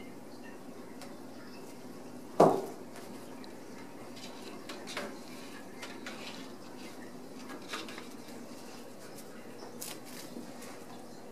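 Kittens playing with a wand toy on a wooden floor: one sharp knock about two seconds in, then a few light taps and clicks over a low steady room hum.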